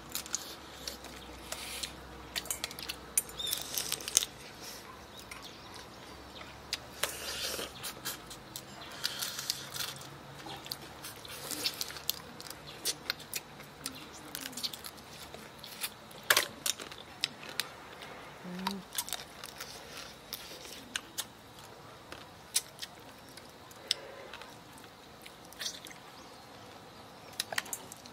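People eating seafood from a hotpot: slurping and chewing, with many scattered small clicks from shells and metal bowls.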